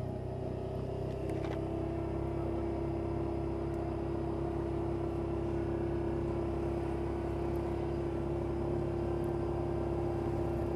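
Yamaha Viking side-by-side's single-cylinder engine running steadily as the machine rolls slowly, heard from inside the cab, with one steady engine tone over a low hum.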